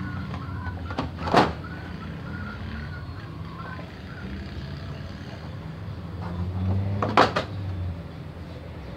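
Plastic back cover of an LED TV being pried off, its snap-fit clips letting go with two sharp snaps, one about a second and a half in and a louder cluster about seven seconds in, over a steady low rumble.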